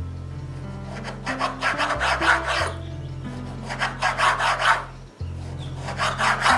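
Kitchen knife sawing through pancetta onto a wooden cutting board, in three bursts of quick rasping strokes: about a second in, around the middle, and near the end. Background music plays underneath.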